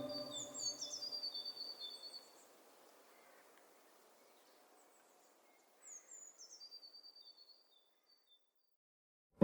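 Faint bird chirps: a few quick high falling notes, then a short trill. The group comes twice, about five and a half seconds apart, as a sustained organ-like music track fades out in the first two seconds.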